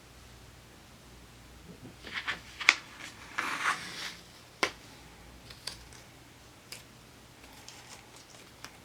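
Washi tape and paper being handled on a planner page: several sharp clicks, with a short scratchy rustle about three and a half seconds in.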